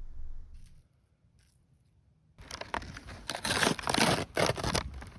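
A bag crinkling and rustling in quick, irregular crackles. It starts suddenly about two and a half seconds in, after a moment of near silence.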